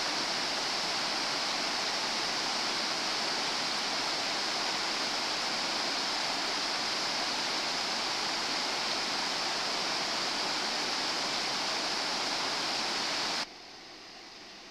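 A flooded river's water rushing, a steady loud hiss with no rhythm. It cuts off suddenly near the end, leaving a much fainter steady hiss.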